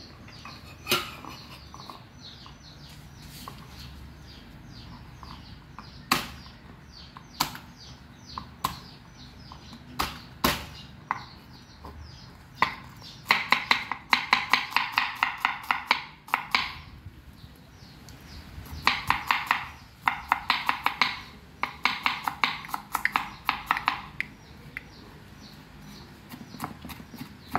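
Kitchen knife mincing garlic on a wooden cutting board: a few single knocks at first, then two runs of rapid chopping, one about halfway through and a longer one later.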